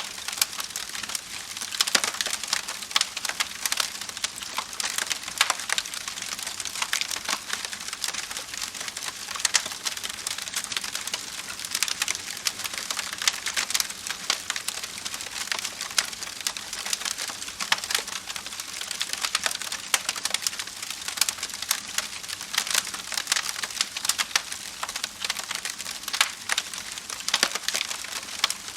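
Wood fire crackling steadily, with a constant hiss and many sharp pops and snaps scattered through it.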